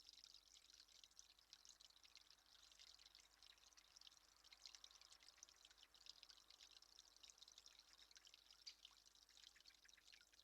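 Faint, continuous patter of many small irregular ticks, sounding like water dripping.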